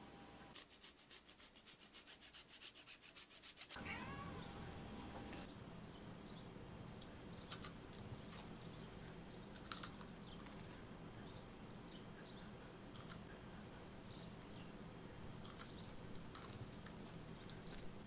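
Quick, even rasping strokes, about ten a second for about three seconds, of hard cheese being grated over the food. Afterwards a few light clicks.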